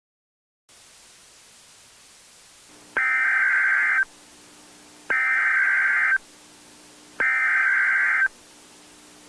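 Emergency Alert System SAME header: three loud, roughly one-second bursts of high-pitched digital data warble, about a second apart, starting about three seconds in over a low hiss. The bursts signal the start of a new emergency alert.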